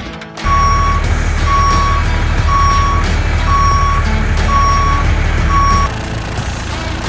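Truck reversing alarm beeping six times, about once a second, over a steady low engine rumble that stops about six seconds in.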